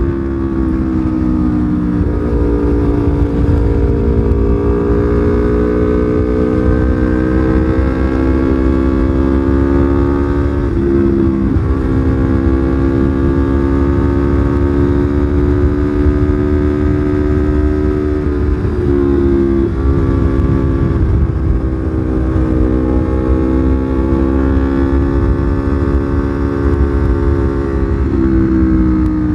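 Yamaha R25's 249 cc parallel-twin engine running under way, its note slowly rising and falling with throttle and stepping in pitch at gear changes, about two seconds in and again a few times later. A steady low rumble of wind and road noise runs beneath it.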